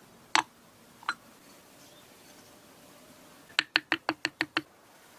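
Two sharp clicks, then about a second in from the middle a quick, even run of seven clicks, roughly seven a second, over a faint hiss.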